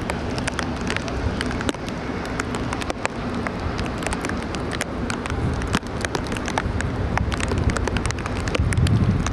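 Boeing 707 jet engines running at high power: a continuous rumbling roar shot through with dense crackle, the low rumble swelling louder near the end.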